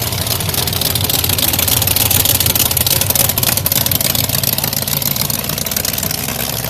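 A car engine running, with a steady low rumble and a rapid, hissy rattle on top. It grows louder through the middle and eases off near the end.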